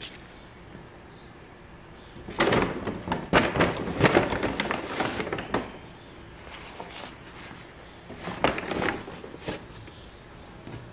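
Small objects being handled and set down on a wooden desk: a run of knocks and rattles starting about two seconds in and lasting a few seconds, then a shorter cluster near the end.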